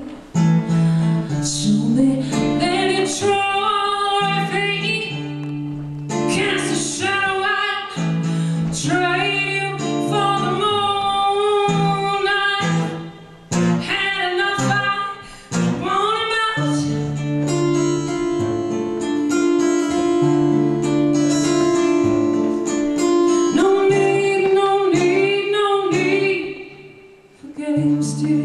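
A woman singing a song while strumming an acoustic guitar, performed live. The sound drops briefly about halfway through and again near the end, between phrases.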